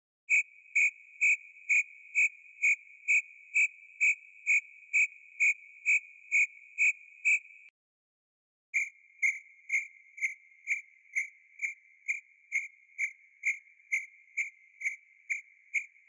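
Cricket chirping: short high chirps repeating about twice a second over a faint continuous trill. It stops for about a second near the middle, then resumes at the same rate, slightly lower in pitch.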